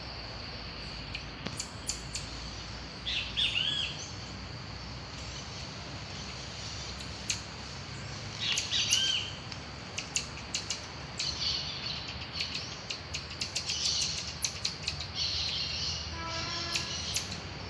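Marmosets calling from the tree: many sharp, short chirps that come in quick runs in the second half, with an arching call about three seconds in and again about nine seconds in.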